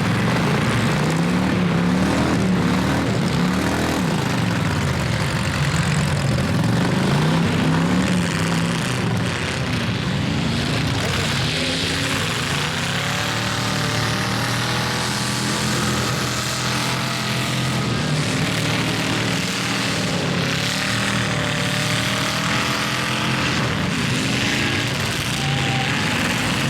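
Several demolition derby car engines running and revving at once, their pitch rising and falling again and again.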